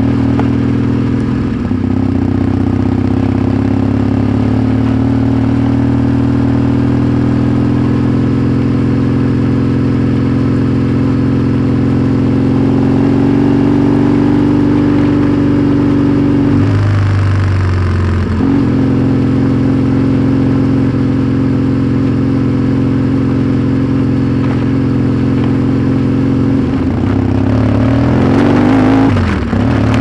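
Yamaha XTZ 750 Super Ténéré's parallel-twin engine running under way on a trail, its note climbing slowly for the first half. Just past halfway the note breaks briefly and settles lower, and near the end the revs swing up again.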